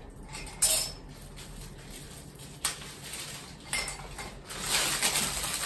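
Kitchen things being handled off to one side: a few sharp knocks and clinks, the loudest about half a second in and others near three and four seconds, then a steady noisy rustle that builds toward the end.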